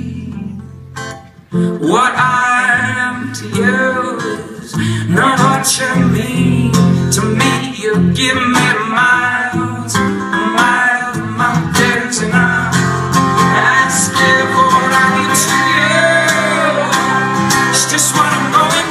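Male voice singing over strummed acoustic guitar, performed live. The music drops low for about the first second and a half, then the singing and guitar come back in full.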